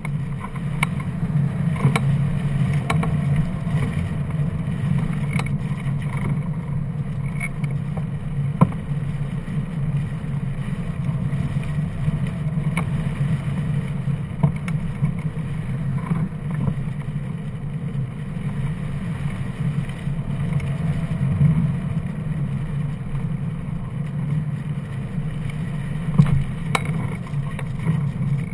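Steady low rumble of air rushing past a glider-mounted action camera as a hang glider flies, with an occasional faint tick.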